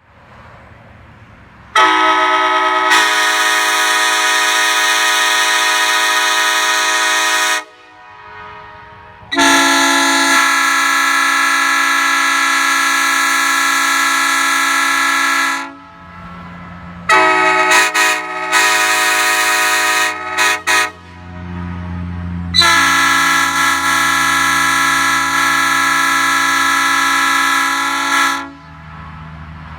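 Nathan Airchime air train horns, a sandcast P3 three-chime and a die-cast K5LA five-chime, sounding loud steady chords: two long blasts of about six seconds each, then a run of short choppy toots from about 17 to 21 seconds, then another long blast of about six seconds near the end.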